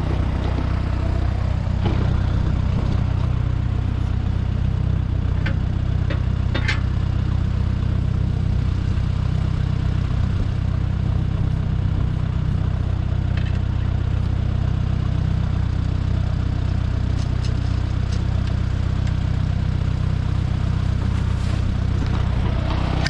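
Minneapolis Moline Jet Star 3 Super tractor engine idling steadily, with a few sharp metallic clanks as the sickle bar mower is levered up into its upright transport position.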